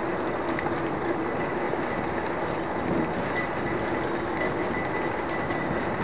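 Steady rushing wind noise buffeting the microphone of a camera on a moving bicycle, mixed with the rolling noise of the ride, with a faint steady high whine underneath.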